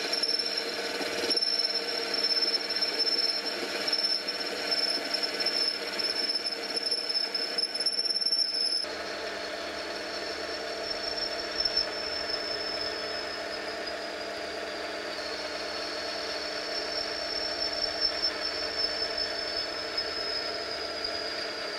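Axminster C1 micro lathe running, with a steady high whine and a hum of several steady tones, as a metal shaft in its chuck is turned down to an 8 mm diameter. The sound wavers unevenly for the first nine seconds or so, then changes abruptly and runs steadier and a little quieter.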